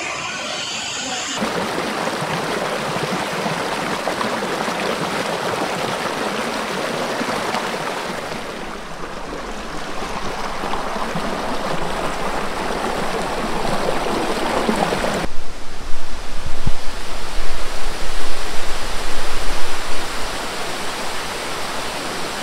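Water of Thottikallu Falls rushing and splashing over boulders in a rocky stream, a steady noisy rush that changes suddenly a few times. It swells loudly and unevenly over the last several seconds.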